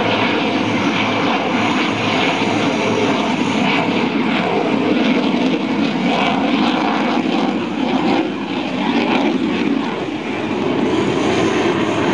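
Jet noise from a single-engine F-16 Fighting Falcon in a display pass overhead: a loud, steady rush that dips slightly twice in the second half.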